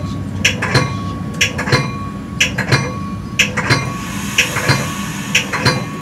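Metra commuter train's wheels clicking over rail joints, heard from inside the leading car: a steady clickety-clack, two quick clicks about once a second over a continuous rumble.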